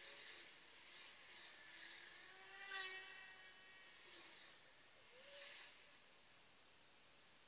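Faint hiss of road noise from a moving vehicle, swelling and fading, with a brief pitched squeak about three seconds in.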